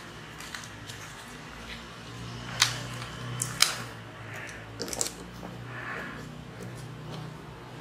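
Handling noise of a plastic guide sticker being peeled and pressed onto a GoPro's lens cover: light crinkling with two sharp clicks about a second apart and a few smaller ones later, over a low steady hum.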